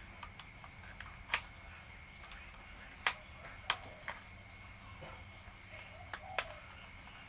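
Irregular sharp clicks and taps, about five loud ones and several softer ones, from a fishing reel being handled while it is unboxed, over a faint steady high-pitched tone.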